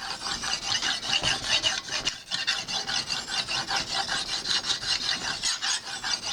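Lansky guided sharpener's ultra-fine hone scraping back and forth along a clamped knife edge in quick, even strokes, several a second, with a short pause a little after two seconds in: the final honing passes that polish the edge.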